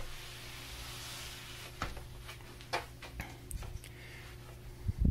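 The bare metal chassis of a Macintosh SE/30, case removed, being turned around on a cloth-covered bench: soft rubbing, then scattered light clicks and knocks, and a dull thump near the end.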